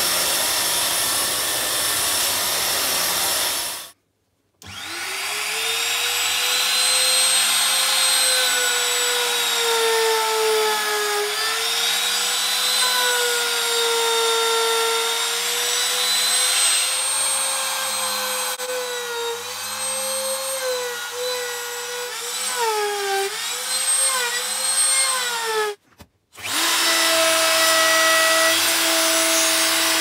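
A belt sander runs on a pine beam for the first four seconds. After a short break, a small electric router spins up and runs for about twenty seconds, its pitch wavering and dipping as it cuts the pine. After another short gap, a plunge router runs steadily near the end.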